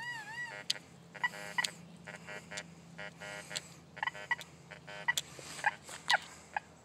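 Fisher F75 SE metal detector giving short electronic tones, a burst about every second as its large coil sweeps over a big hand-cut iron nail with a piece of silver at its head. Some of the tones are buzzy and some are higher and wavering, mixed with sharp clicks.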